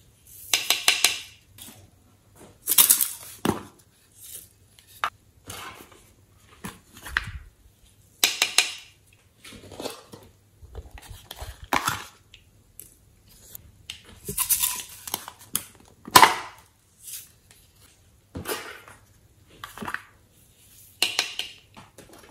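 Hands handling small plastic clay containers over a glass bowl of slime. The sound is a string of short crinkling and clicking noises, a second or a few seconds apart.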